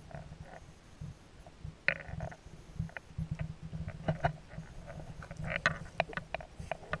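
Underwater sound through a GoPro's waterproof housing in shallow sea water: a muffled, uneven low rumble of moving water, with scattered sharp clicks and taps, a strong one about two seconds in and a quick run of them towards the end.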